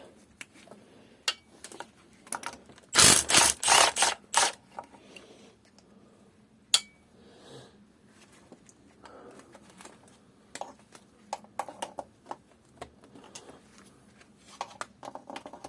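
Hand-tool clicks and metallic clatter as a 10mm socket and ratchet are worked on the inlet-manifold nuts of a bench-mounted engine. A loud burst of rattling comes about three seconds in and a sharp single click about seven seconds in, then lighter rapid ratchet-like ticking.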